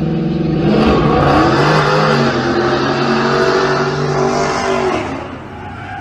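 Car engines revving hard, their pitch rising and falling, over a loud rushing noise from sliding tyres that starts about a second in and eases off after about five seconds.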